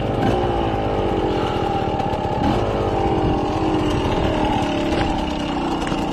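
Off-road motorcycle engine heard from on the bike, its revs falling steadily as the throttle is eased off. There is a short rise in revs about two and a half seconds in, then the revs fall again and settle lower.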